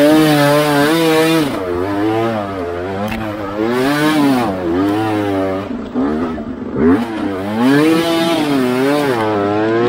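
Dirt bike engine revving up and down again and again as the rider works the throttle through deep muddy ruts, with a sharp knock about seven seconds in.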